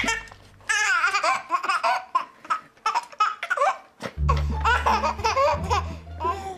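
A baby laughing hard in repeated bursts of high giggles and belly laughs, over background music.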